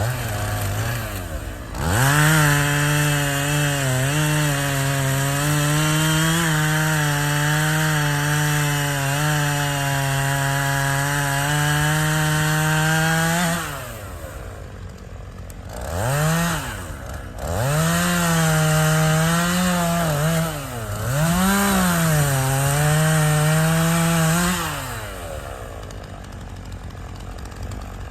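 Two-stroke chainsaw revving to full throttle and cutting wood in a long cut of about eleven seconds, its pitch sagging briefly under load. It drops back to idle, then makes a few shorter high-revving cuts before settling to idle near the end.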